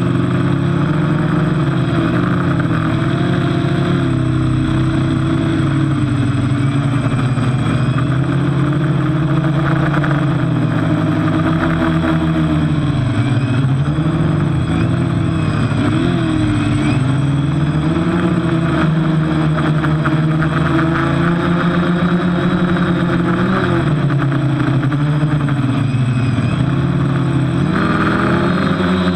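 TBS Discovery quadcopter's electric motors and propellers running in flight, heard from its onboard camera, a whine whose pitch wavers up and down as the throttle changes, with one of the propellers damaged.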